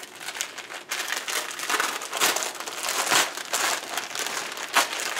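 Christmas wrapping paper being torn open by hand, a continuous crinkling broken by short rips.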